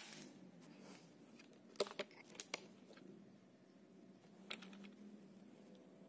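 Sharp metallic clicks from a compact PCP air rifle's action: a cluster about two seconds in and another pair about four and a half seconds in, as the bolt is worked to load the next pellet by hand. A shot fired just before rings off at the very start.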